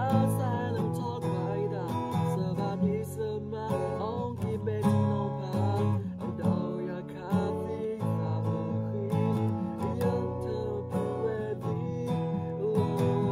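Acoustic guitar strummed as accompaniment to a woman singing a song.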